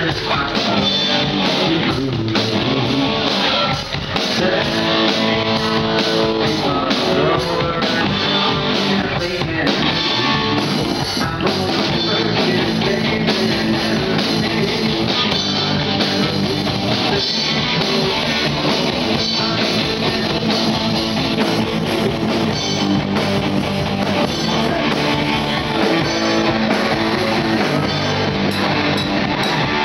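Live rock band playing loud: electric guitars and bass over a drum kit, heard from the audience.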